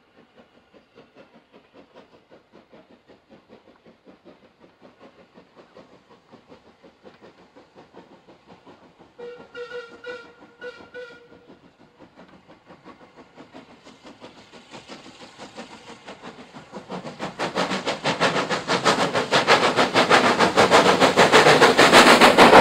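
Metropolitan Railway No. 1, an 0-4-4 steam tank engine, working steam with a steady rhythm of exhaust chuffs as it approaches. It sounds a short whistle about nine seconds in. The chuffing then grows much louder and peaks as the train passes close underneath in a cloud of steam.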